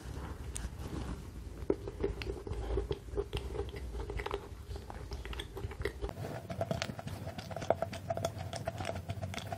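Biting into and chewing a Starbucks butter madeleine coated in white chocolate: soft, moist chewing with many small mouth clicks.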